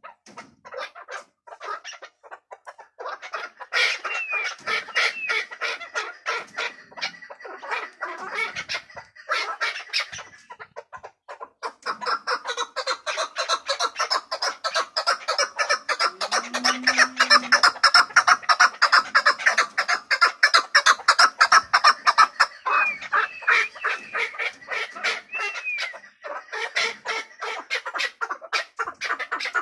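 Chukar partridge calling: a long run of rapid, repeated clucking notes that builds to its loudest through the middle, with a few short sliding notes near the start and the end.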